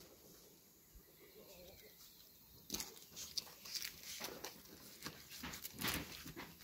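Knife cutting through the crisp, flaky filo crust of a baked green-onion byrek: a run of short crackles and crunches beginning nearly three seconds in.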